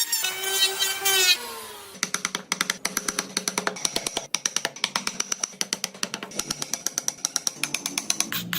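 Background music: a short pitched melodic phrase, then a fast, steady percussive beat.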